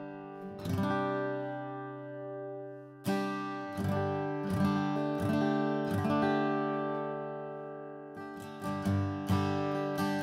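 Atkin Essential OM acoustic guitar strummed with a BlueChip TD35 pick: single chord strokes a second or so apart, left to ring, then quicker strumming from about eight seconds in.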